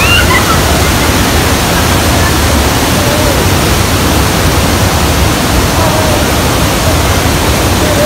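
Loud, steady rush of water from Hogenakkal Falls on the Kaveri river, running high with floodwater after heavy rain. Faint distant voices under it.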